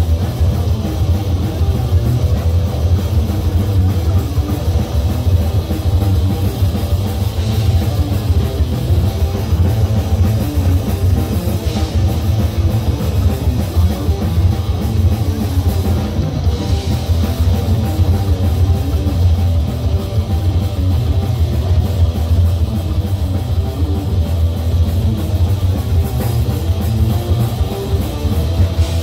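Thrash metal band playing live and loud: distorted electric guitars over a pounding drum kit, steady throughout.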